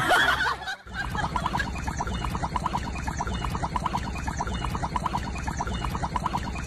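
A splash as a dog lands in a ditch of water, then a husky with its muzzle in a shallow channel lapping water, a steady rhythmic gurgle about four or five times a second.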